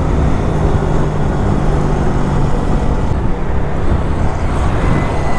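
Steady riding noise on the road: a vehicle engine running at a constant speed under a loud rush of wind and road noise, with a low hum through the first couple of seconds.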